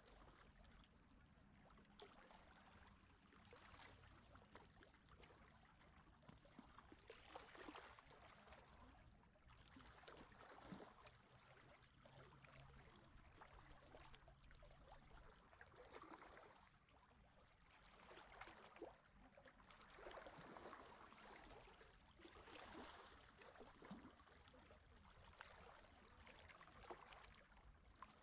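Faint small sea waves lapping on a shore: soft washes of fizzing, crackling water that swell and fade every few seconds.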